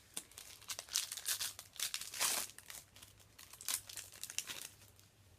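Foil booster-pack wrapper crinkling and tearing as a Yu-Gi-Oh card pack is opened, in irregular crackles that peak a little past two seconds in.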